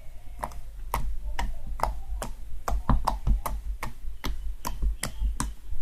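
Slime being squeezed and stretched in the hands, making a quick irregular series of sharp wet clicks and pops, about four or five a second, over a low handling rumble.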